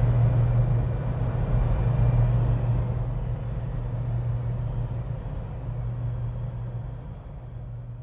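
Low, steady rumble of ship machinery carrying across the water, with a constant low hum, slowly fading away.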